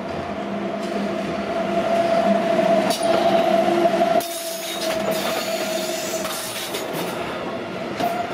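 BLS Re 465 electric locomotive hauling an intermodal freight train past: a steady rumble with a steady whine, loudest as the locomotive goes by. A little past the midpoint it drops as the freight wagons follow, with scattered wheel clicks over the rail joints.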